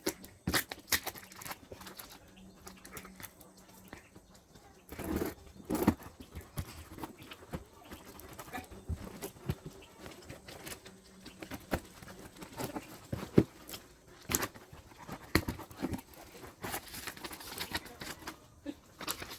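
Packaging being handled and opened by hand: irregular crinkles, rustles and light taps, with louder bursts about five to six seconds in.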